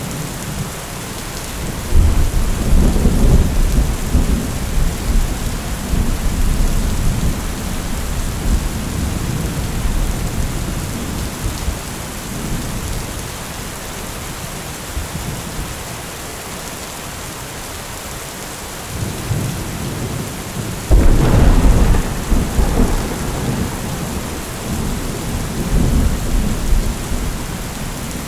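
Heavy rain falling steadily, with rolling thunder: a loud rumble breaks in about two seconds in and dies away over several seconds, and a second sudden crack and rumble comes about two-thirds of the way through.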